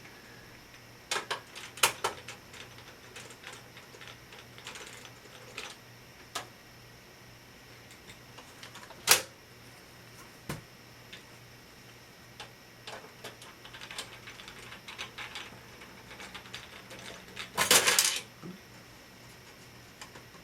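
Scattered metallic clicks and clinks of screws, a screwdriver and a vintage AT computer's metal case being handled during disassembly, with a sharp knock about nine seconds in and a louder rattling clatter near the end.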